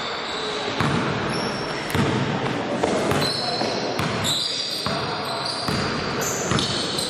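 Basketball dribbled on a hard indoor court, bouncing roughly once a second, with short high sneaker squeaks between the bounces and the boomy echo of a sports hall.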